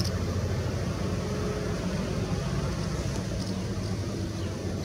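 Electric-locomotive-hauled passenger train approaching at a distance: a steady low rumble and hum.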